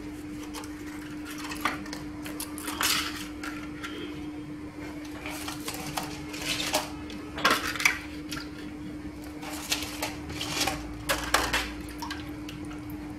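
Gelatin leaves being handled into a plastic bowl of water to soak: scattered light clicks and rustles as the stiff sheets are taken up and tapped against the bowl and pushed into the water, over a faint steady hum.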